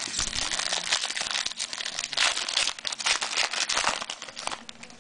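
Crinkling and tearing of a trading card pack's foil wrapper as it is torn open and handled, loudest a little past the middle and fading just before the end.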